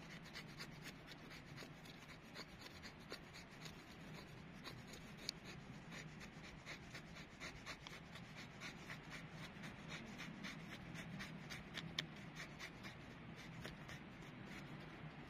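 Knife blade scraping along a split of dry wood in quick, even strokes, several a second, shaving off fine curls of wood. Faint.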